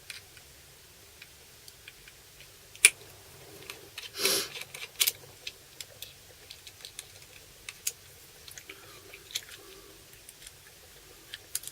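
Scattered small clicks and taps of a plastic mains plug and tools being handled on a bench, with one sharp click about three seconds in and a brief scrape a second later.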